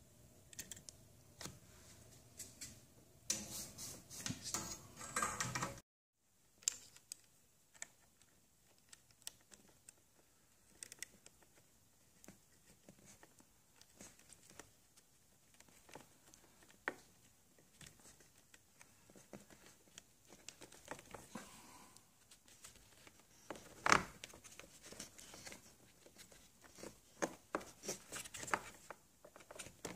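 Faint scattered clicks and rubbing from hands handling wires and a plastic inline fuse holder. A denser stretch of rubbing a few seconds in cuts off suddenly, and one sharper click comes past the middle.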